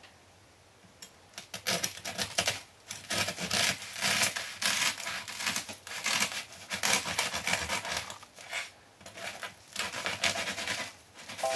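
Serrated bread knife sawing through the hard crust of a sourdough loaf, a run of uneven back-and-forth scraping strokes that starts about a second and a half in.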